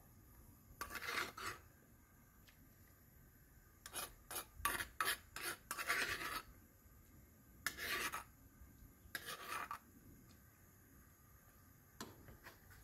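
Metal spoon scraping ground garlic out of a stone molcajete, in several short scraping strokes with pauses between, most of them bunched in the middle.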